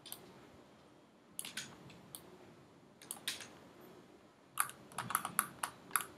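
Clicks of a computer mouse and keyboard: a few scattered clicks, then a quick run of them over the last second and a half.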